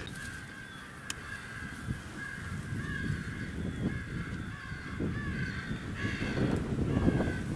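Crows cawing over and over, a steady string of harsh calls.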